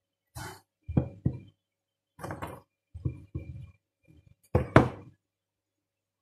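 Wooden rolling pin knocking and bumping on a wooden kitchen worktop as pastry is rolled out, a series of irregular knocks and thuds with the loudest two near the end.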